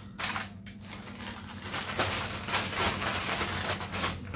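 Plastic courier mailer bag crinkling and rustling as it is handled, sparse at first and dense from about halfway in.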